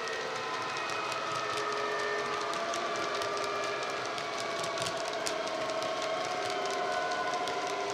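Model Class 66 locomotive's ESU sound decoder playing a diesel engine sound through its on-board speaker: a steady drone of several tones that drift slowly in pitch. Many small clicks from the model wagons' wheels running over the track sound over it.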